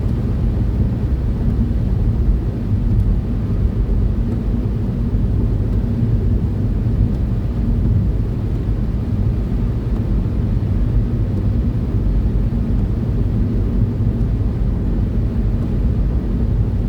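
Steady low rumble of engine, tyre and road noise heard inside a car cruising at motorway speed.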